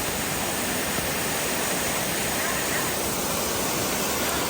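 Steady, loud rush of river water pouring over a weir or through rapids, an even roar with no breaks.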